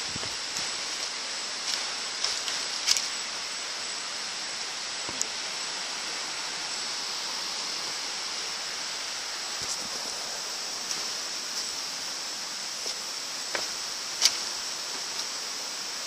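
Steady rushing of river water, an even hiss with a few faint clicks scattered through it.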